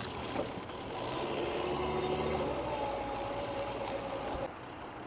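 Twin outboard motors of a coast guard rigid inflatable boat running at low speed, a steady hum with a held whine over it. The sound drops sharply in level about four and a half seconds in.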